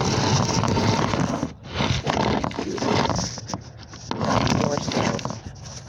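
Close rubbing, scraping and knocking of a phone against its makeshift crate mount as it is shifted and repositioned, in three rough bursts.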